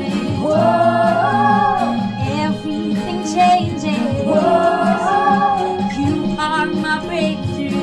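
Worship team of male and female singers singing a praise song together, holding two long 'whoa' notes with vibrato, over acoustic guitar and keyboard accompaniment.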